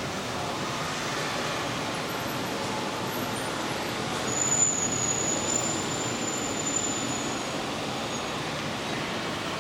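G-scale model freight train rolling along its track, a steady rolling noise. A thin high squeal is held for about three seconds in the middle.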